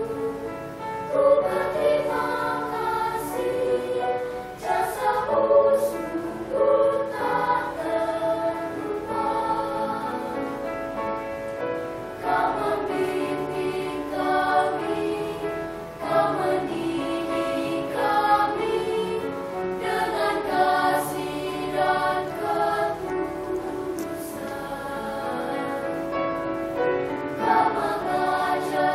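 Children's choir singing together, holding sustained notes that move from pitch to pitch.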